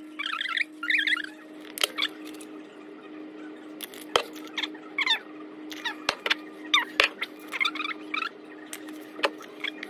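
Kitchen handling noise while seasoning food: sharp clicks and knocks of spice shakers, lids and containers, mixed with clusters of short squeaky chirps, over a faint steady hum.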